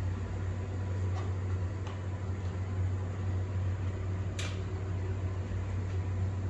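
Steady low hum of a fan or similar machine, with a few light clicks of parts and padding being handled. One sharper click comes about four and a half seconds in.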